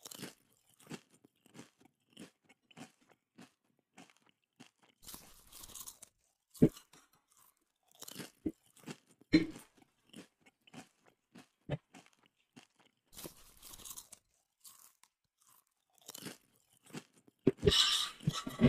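Close-up chewing and crunching of chicken feet: irregular soft crackles with a few sharper cracks, and a louder, denser spell of crunching near the end.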